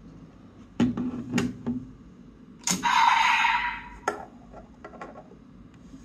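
Hard plastic clicks and knocks from the DX XGeats Raise Buckle and Desire Driver toy being handled and set down on a table. A sharp click about three seconds in is followed by a hissy sound lasting just over a second, then a few lighter ticks.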